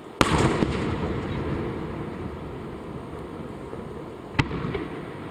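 Aerial firework shells bursting: a loud bang about a quarter second in, followed by a few quick cracks and a long rumbling echo that dies away, then a second sharp bang near the end.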